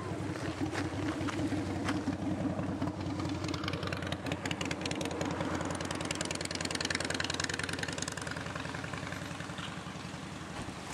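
Steam venting from a grey hydrothermal mud crater: a fast, even pulsing rumble with a hiss that swells in the middle and eases near the end.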